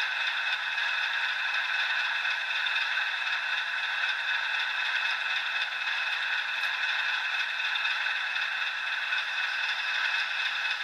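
Sound decoder in a Bachmann model Class 40 locomotive playing a recorded Class 40 diesel engine idling, through the model's small speaker: a steady, thin sound with no deep rumble.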